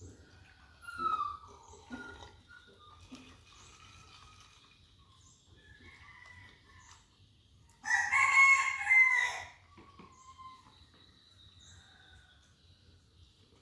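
A rooster crowing once, about eight seconds in, lasting about a second and a half, with faint scattered bird chirps around it.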